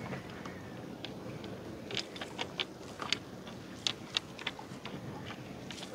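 Fishing net being hauled and handled by hand in a boat: scattered light clicks and taps, irregular and mostly from about two seconds in, over a low steady background.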